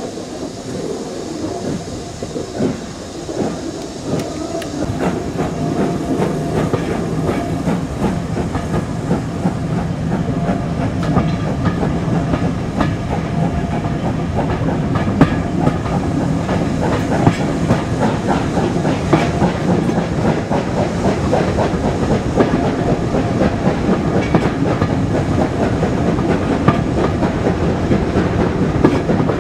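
Steam-hauled passenger train pulling away and gathering speed, heard from an open carriage window: the coaches' wheels clatter rapidly over the rail joints over a steady running rumble, growing louder as the train picks up speed.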